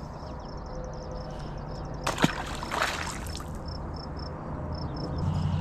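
Outdoor background by a ditch: a steady low hum, faint high insect chirps repeating, and a brief noisy rustle with a sharp click about two seconds in.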